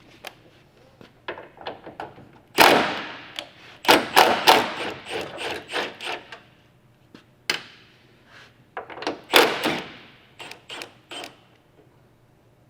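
Hand tools working the 10 mm bolts on a pickup's tailgate hinge brackets: irregular metal clicks and clanks, with a few louder bursts of rattling about three seconds in, around four to five seconds, and again near nine seconds.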